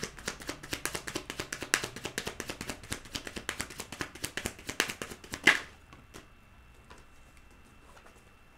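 A deck of tarot cards being shuffled by hand: rapid, irregular flicking clicks of cards slapping together, ending about five and a half seconds in with one sharp snap as the deck comes together, then only faint room tone.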